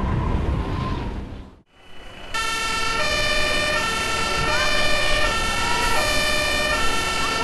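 Music fades out, then about two seconds in emergency-vehicle sirens start, several German two-tone sirens overlapping, each switching back and forth between a high and a low note.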